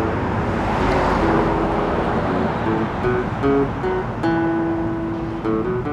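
Acoustic guitar being strummed, playing a song's instrumental opening with the chords changing every second or so, before any singing.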